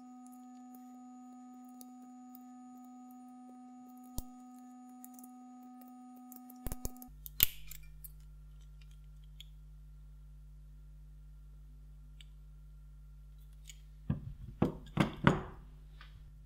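Scattered small metallic clicks and snaps as the nickel connecting strips are pried off cylindrical lithium-ion laptop battery cells with a hobby knife. Near the end comes a short clatter of the cells being set down on the table.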